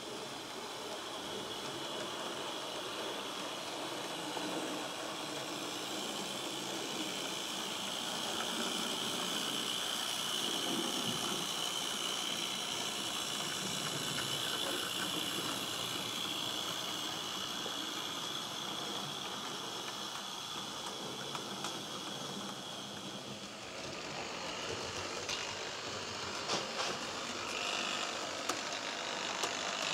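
HO-scale model train running on the layout: a steady hiss with a high whine, changing about three-quarters of the way through to a patter of small clicks and rattles.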